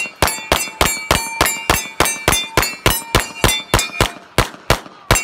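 9mm 2011 pistol fired in a rapid string at steel plates, about four shots a second, each hit making the steel ring. The shots come slightly slower near the end.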